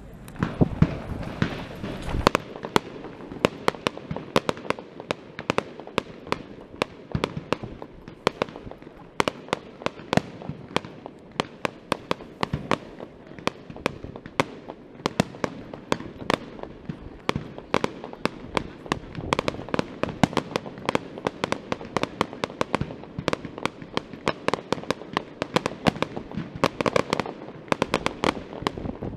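Aerial fireworks display: a rapid, continuous string of sharp bangs and crackles, several a second, opening with a heavy low boom in the first couple of seconds.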